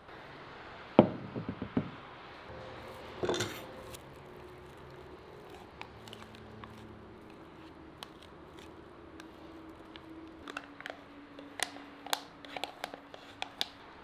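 A dish set down on a wooden table with a sharp knock and a few quick rattles about a second in, and another clatter a couple of seconds later. After that comes thick white cream squelching out of a plastic bag into a clay bowl, with a spoon clicking and scraping against the bowl in the last few seconds.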